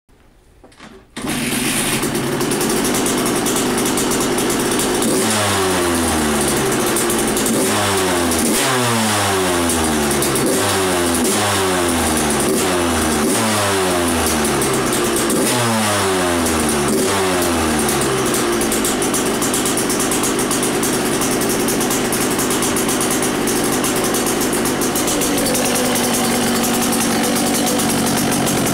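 2012 Suzuki RM85's 85cc two-stroke single with a Pro Circuit exhaust pipe, starting about a second in. From about five seconds in it is revved in a long series of quick throttle blips, each dropping back, and after about eighteen seconds it runs steadily.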